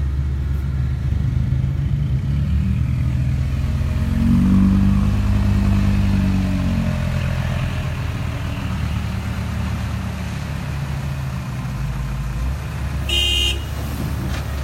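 Dump truck's diesel engine running steadily under way, swelling louder for a few seconds in the middle. A short horn toot sounds near the end.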